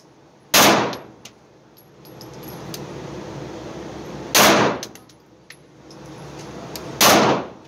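Three 9mm pistol shots from an Arex Delta L Gen 2 firing 115-grain rounds, slow and evenly spaced about three and a half seconds apart, each with a ringing echo in the indoor range. The new, not yet broken-in pistol cycles the lighter 115-grain load each time.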